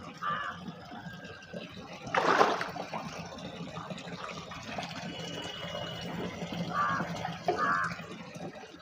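Water sloshing and splashing in an aquarium as something is pushed down into it, with one louder splash about two seconds in, over a low steady hum.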